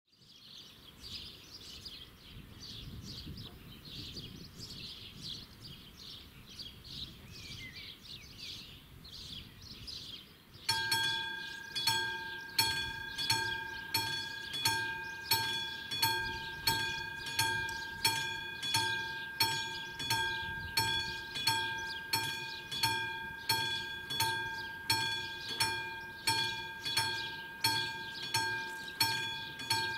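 Birds chirping, then about eleven seconds in a level crossing's classic electromechanical warning bell starts ringing, struck about once a second with each strike ringing on. The bell is the crossing's warning that a train is approaching.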